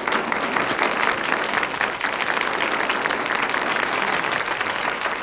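Studio audience applauding: many hands clapping at an even level.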